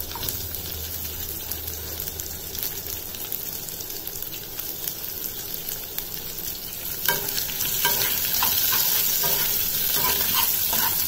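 Sliced onions and green chillies sizzling in hot ghee and oil in a small nonstick saucepan. About seven seconds in, the sizzling grows louder and a steel spoon starts stirring, with short clicks against the pan.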